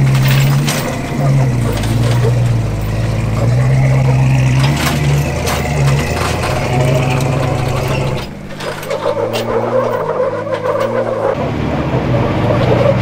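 Pickup tow truck engine labouring up a steep rock climb under the load of a towed Jeep, its note rising and falling with the throttle, with a few sharp knocks. About eight seconds in it gives way to a different, lower engine sound that builds again near the end.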